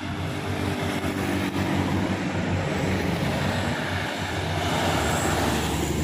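Road traffic passing close by: a car and a motorcycle, then a small truck, with a steady low engine drone under tyre noise.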